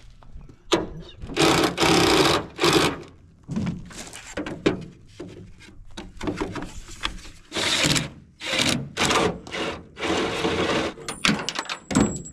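Footsteps crunching on gravel, then a run of knocks, clunks and scrapes as a Dodge pickup's plastic tail light housing is worked loose and pulled off by hand, with a short high squeak near the end.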